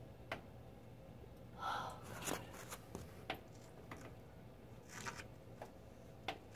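Quiet room with about six sharp ticks at irregular spacing, and a short breath or sniff about two seconds in and again about five seconds in.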